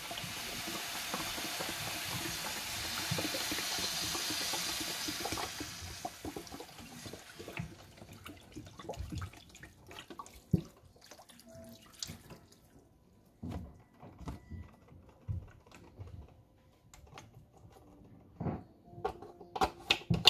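Chicken broth poured from a carton onto raw vegetables in a stainless steel skillet: a steady pouring splash for about six seconds that tapers off and stops, followed by scattered light taps and knocks.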